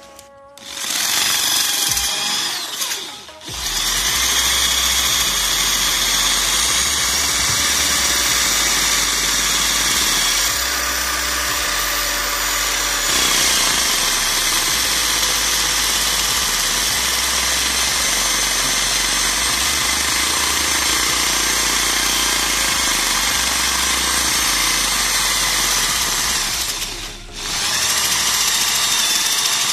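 Corded handheld electric drill running at speed, spinning a homemade tyre while sandpaper is held against its rim to sand it smooth. It starts about a second in, stops briefly twice (once early, once near the end), and starts up again each time.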